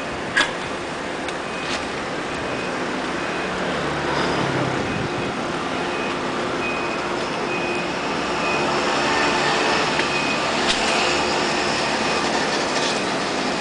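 Steady mechanical hum and rumble of vehicles, with an EMU1200 electric multiple unit standing nearby; a sharp click about half a second in.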